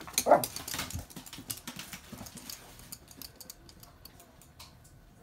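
Toy poodle's claws clicking irregularly on a hard floor as it walks between packs of toilet paper, the clicks thinning out after about three seconds. A short sound falling in pitch, like a whine, comes about a quarter second in and is the loudest thing here.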